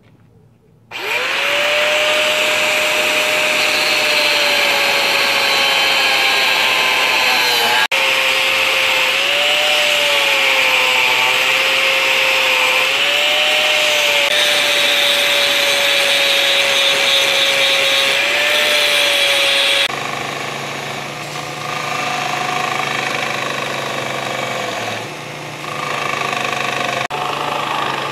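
An angle grinder spins up about a second in and cuts through circular-saw-blade steel, a loud whine with a hissing cut whose pitch dips each time the disc bites harder. About twenty seconds in it gives way to a quieter, steadier belt grinder with a low motor hum, grinding the steel.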